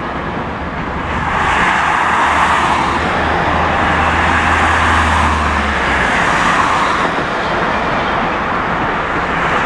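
City road traffic: passing cars, their tyre noise swelling twice, over a low steady engine drone that stops about six seconds in.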